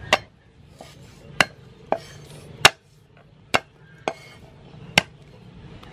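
Cleaver chopping down through garlic cloves onto a thick round wooden chopping block: seven sharp chops at uneven intervals, the fourth the loudest.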